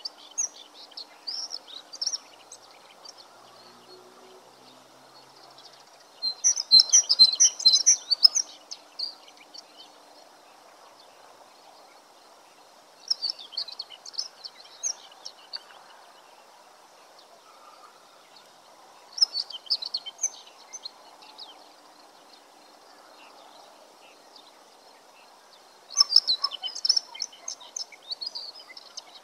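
A songbird singing short phrases of rapid high chirps, repeated about every six seconds, over a faint steady background hiss.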